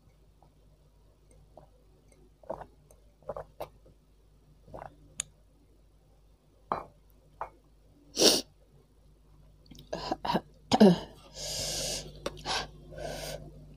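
Close-up mouth sounds of a woman eating very spicy broth: small sips, clicks and breaths. About eight seconds in comes one loud sneeze, set off by the chili heat. Near the end a falling exhaled "aah" and noisy slurping follow.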